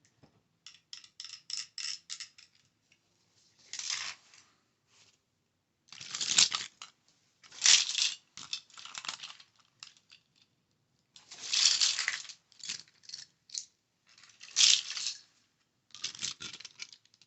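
Small objects tapped and handled close to the microphone: a run of quick taps about a second in, then several short scratchy rustling bursts with light clicks between them.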